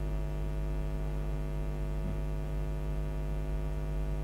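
Steady electrical mains hum with many even overtones, unchanging throughout.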